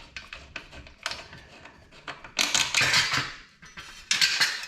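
Small metallic clicks as a bolt on a stock dirt-bike exhaust is loosened with a hand tool. These are followed by two louder bursts of metal clattering, about two and a half and four seconds in, as the stock exhaust comes loose and is pulled off.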